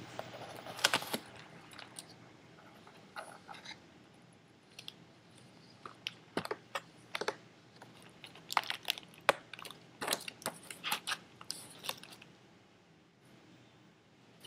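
Hands handling a cardboard enclosure: a string of light knocks, taps and scrapes in clusters as its hinged cardboard front flap is opened and shut. The knocking dies down near the end.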